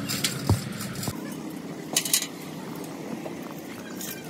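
Steel chain clinking against a truck axle housing, with sharp metal knocks about half a second in and twice around two seconds in, over a steady low background hum.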